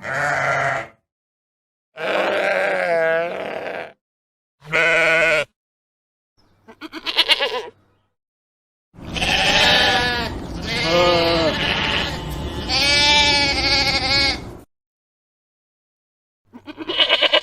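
Sheep bleating: a string of separate baas, several of them wavering in pitch, cut apart by dead-silent gaps, with one longer run of three or four baas in a row over a steady background noise in the middle.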